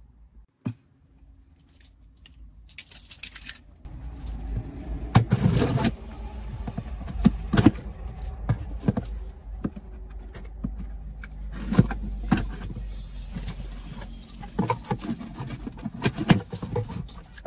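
A cardboard parcel being handled and cut open inside a car: scattered clicks, taps, scrapes and rustling over a low steady rumble.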